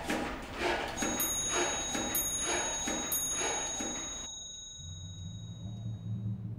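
A wall clock striking three: three high bell strokes about a second apart that ring on over a busy background noise. Near the end a low, pulsing hum begins.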